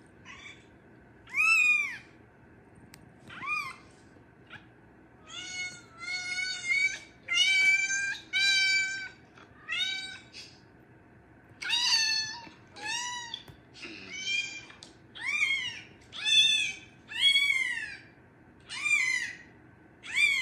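A cat meowing over and over: a long run of short, high meows, each rising and falling, in quick succession with only brief pauses.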